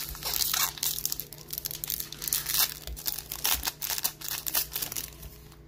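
Foil wrapper of a baseball card pack being torn open and crinkled by hand: a run of irregular crackles that thins out near the end.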